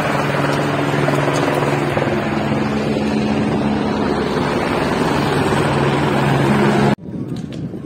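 Steady, loud engine drone with a low hum over a noisy wash, which cuts off suddenly about seven seconds in to much quieter background noise.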